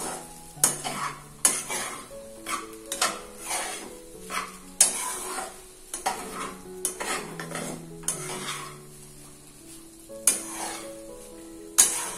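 Spatula stirring quinoa fried rice in a frying pan: irregular clinks and scrapes against the pan, about one a second, over a light sizzle. Soft background music plays under it.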